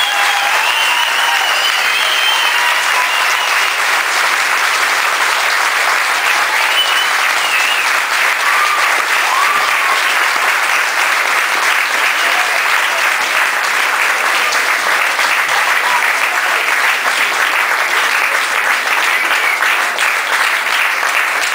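Crowd of spectators applauding steadily, a dense unbroken patter of many hands clapping as medals are handed out.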